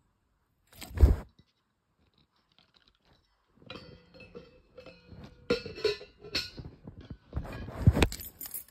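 Handling noise on the phone's microphone: a heavy thump about a second in, then a few seconds of close rubbing, scraping and knocking, with the loudest thumps near the end.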